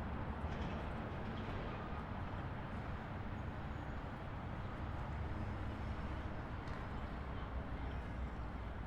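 Steady highway driving noise of a car: a constant low rumble of tyres and engine with an even road hiss above it.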